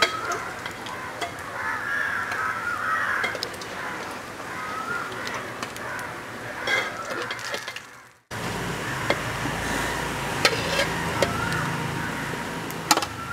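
Chicken bread balls deep-frying in hot oil in a steel pan, the oil sizzling steadily, with sharp clicks of a perforated steel slotted spoon against the pan as the balls are lifted out. The sound drops out briefly about eight seconds in, and a low rumble sits under the sizzle after that.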